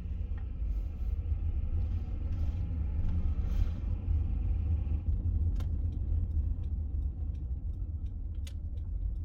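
Honda Element driving on a road at night, heard from inside the cabin: a steady low rumble of road and engine noise. A few light clicks come in the second half.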